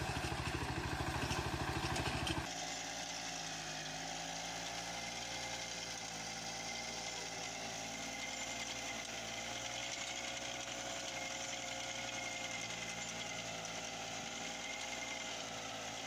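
A Kentavr walk-behind tractor's single-cylinder diesel engine running under load with a rapid, even beat as it pulls a potato digger through very hard ground. About two seconds in, the sound cuts to a different walk-behind tractor's engine, running steadily and more quietly with a faint high whine.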